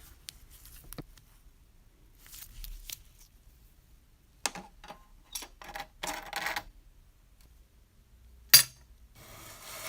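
Small metal parts of an old rusted model bus clicking and clattering as it is taken apart, in scattered light taps with one sharp click near the end. A rubbing, scraping sound starts just before the end.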